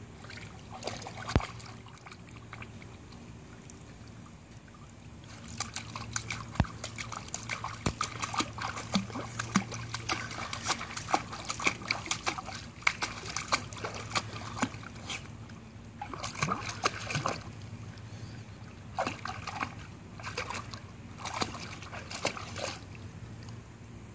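A small dog pawing at pool water on a submerged step, making runs of quick splashes broken by short pauses, over a steady low hum.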